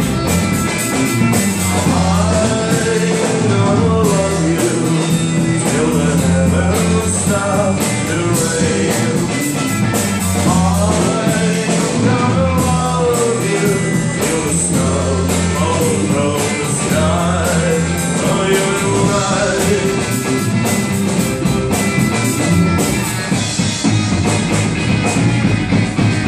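A rock band playing live: a singer over electric guitar, bass guitar and a drum kit, with a steady beat of cymbal hits.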